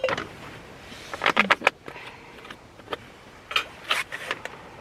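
Camping gear being handled and set down: a few sharp knocks and short scrapes, in a cluster about a second in and again near four seconds.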